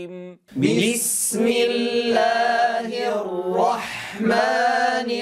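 Quranic recitation chanted in tajwid style: a held note ends, then after a short pause about half a second in, a new melodic line starts with drawn-out notes that bend in pitch.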